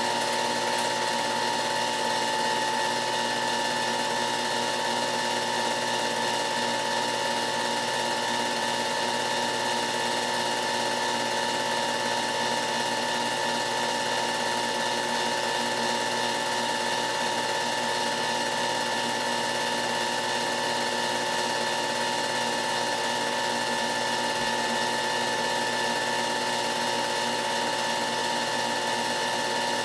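Film projector running: a steady motor whine with several high tones over a constant mechanical whirr and clatter.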